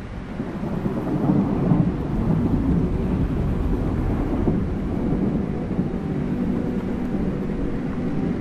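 Experimental ambient soundtrack: a dense, low rumbling swell of noise rises within the first second and dominates the sound. Steady drone tones come back faintly near the end.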